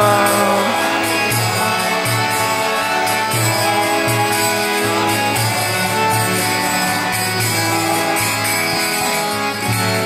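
Harmonium playing sustained chords with no singing, the instrumental close of a kirtan chant.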